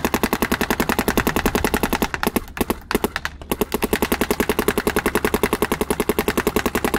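Dye M2 electronic paintball marker firing rapidly and continuously, about a dozen shots a second, with a brief stutter between roughly two and three and a half seconds in before the steady string resumes.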